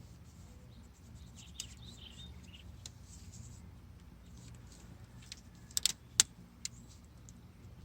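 A few light metallic clicks and taps from engine parts being handled, the sharpest cluster about six seconds in, over a steady low hum.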